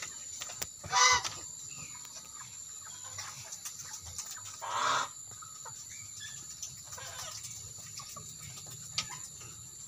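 Farmyard chickens clucking, with two short louder calls, one about a second in and one near the middle.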